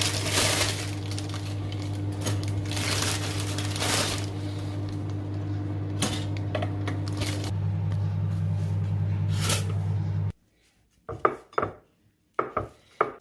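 Microwave oven running with a steady hum while the food heats inside, some rattling over it. About ten seconds in the hum cuts off abruptly, and a few sharp clinks of dishes and cutlery follow.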